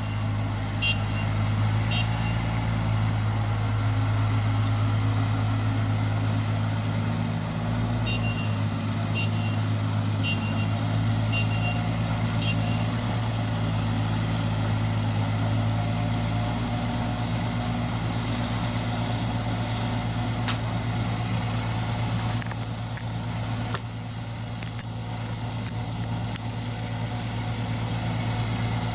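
ISEKI combine harvester's engine running steadily while cutting rice. Short high electronic beeps sound about once a second at the start and again from about 8 to 13 seconds in.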